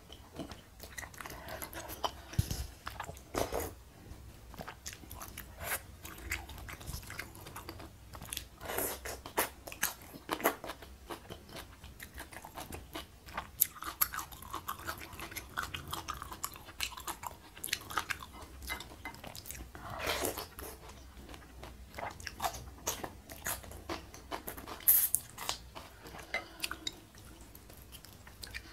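Close-miked chewing and biting of spicy Korean instant noodles with stir-fried bok choy, chili and squid: a steady run of wet mouth sounds and crunchy bites.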